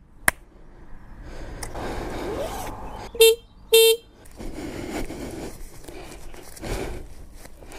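Two short vehicle-horn toots about half a second apart, over a faint steady outdoor background.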